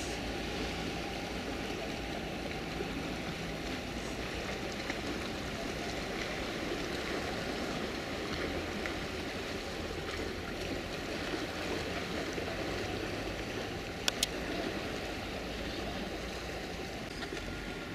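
Steady wash of sea water lapping against a rocky harbour breakwater, with a low rumble underneath. Two sharp clicks a little before the end.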